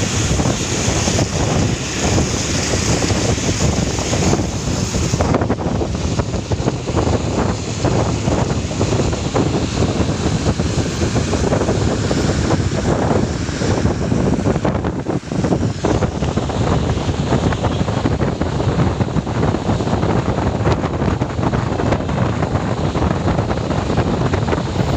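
Loud, steady wind rush buffeting the microphone, with road noise from a car driving fast.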